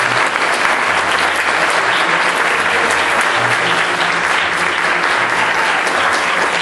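Audience clapping: a dense, steady round of applause from a large crowd.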